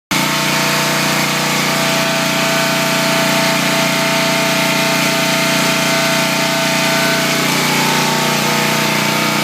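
Honda gas pressure washer running steadily: its single-cylinder four-stroke engine drones at a constant speed under an even hiss of the high-pressure spray. The sound comes in abruptly at the start.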